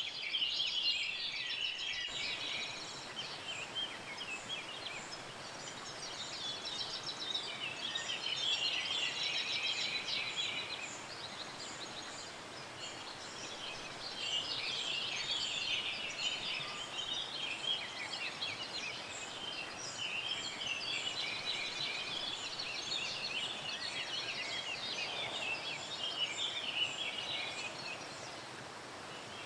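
Many small birds chirping and twittering in busy bouts with short lulls, over the steady rush of a waterfall.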